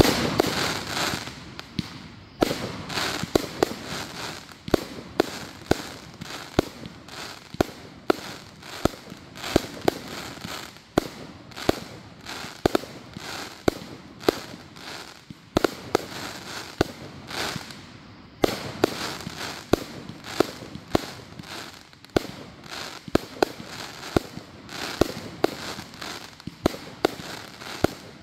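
A 100-shot Exploding Galaxies firework cake firing shot after shot: a regular run of sharp bangs, roughly one every two-thirds of a second, with a hiss between them.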